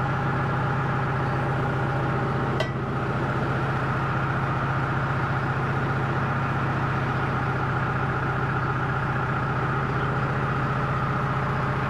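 John Deere 210LE landscape loader's diesel engine running steadily, with a single sharp click about two and a half seconds in.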